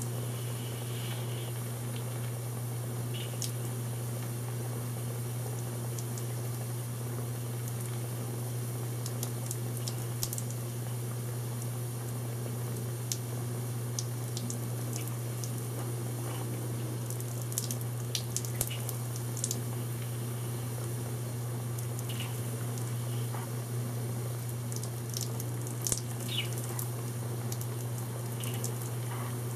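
Steam collapsing against water trapped in the dips of a wavy clear hose, in small condensation-induced water hammer events: scattered sharp clicks and pops, more frequent in the second half, over a steady low hum.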